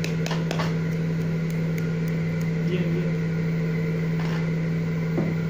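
A steady low electrical hum, like a running motor, with a few faint taps from the toys on the tiled floor about half a second in.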